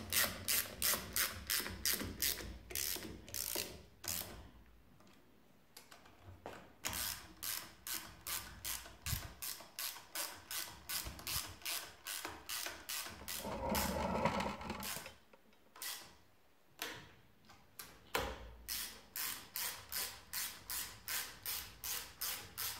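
Hand socket ratchet clicking rapidly, about three to four clicks a second, in runs of a few seconds with short pauses between, as the cylinder head nuts are run down ahead of torquing in a cross pattern.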